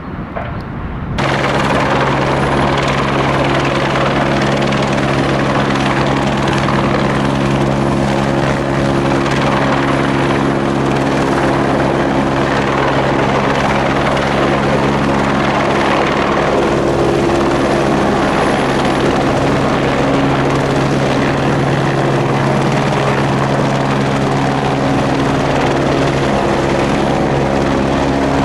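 Light helicopter hovering close by with a railway signal mast slung beneath it on a long line: a steady rotor and engine drone with a low hum. It comes in suddenly about a second in, after fainter background sound, and holds steady.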